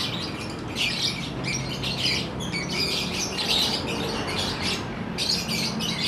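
Many caged lovebirds chirping together in a dense, continuous chorus of rapid high calls, with a brief dip a little after five seconds in.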